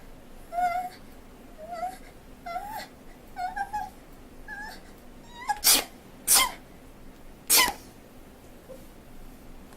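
A person gives a string of short, high, squeaky voice sounds about a second apart, building up to three loud, acted sneezes: two in quick succession, then a third about a second later.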